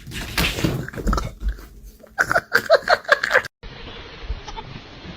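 Scattered clicks and rustling, then a quick run of short animal calls about two seconds in that stops abruptly, followed by a low steady hiss.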